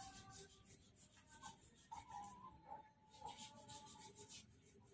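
Faint scratchy rasping and soft clicks from a water monitor's jaws as it swallows a live snake.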